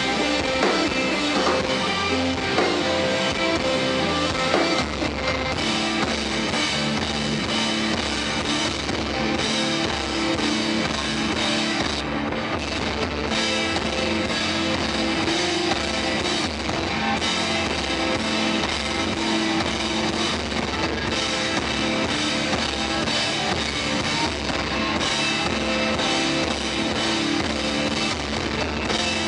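Live rock band playing: electric guitars over a drum kit, a dense, steady, loud wall of sound with no breaks.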